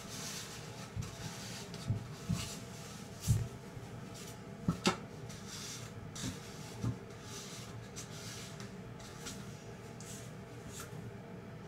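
Handling noises on a tabletop: a few light knocks and bumps, the loudest about three seconds in, amid soft, repeated rustling as something is handled.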